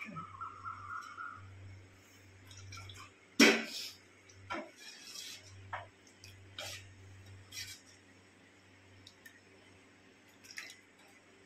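Steel ladle stirring thin dosa batter in a stainless steel pan: wet slopping and dripping as batter is lifted and poured back, with scattered metal clinks of ladle against pan, the sharpest about three and a half seconds in. A low steady hum sits underneath.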